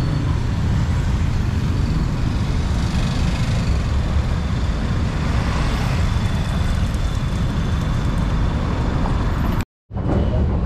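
Busy city-street road traffic: a steady, continuous rumble of passing vehicles. The sound cuts out for a split second near the end.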